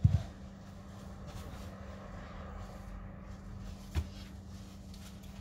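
Hex dumbbells thudding on artificial turf: a heavy thud right at the start and a shorter, sharper knock about four seconds in, over a steady low hum.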